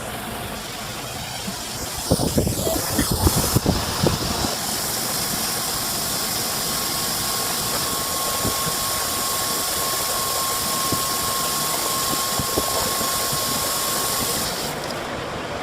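Steady loud hiss, like air or gas jetting, with a cluster of knocks about two to four seconds in and a thin steady whistle through the middle; the hiss cuts off shortly before the end.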